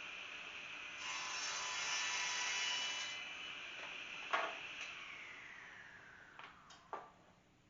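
Power saw running and cutting through a piece of wood, the cut louder for about two seconds. The saw is then switched off with a click and its blade winds down, the hum falling in pitch as it fades, with a few light knocks near the end.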